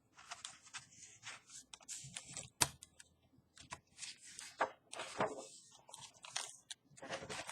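A picture book being handled and its pages turned: irregular rustling and crackling of paper, with small clicks and knocks.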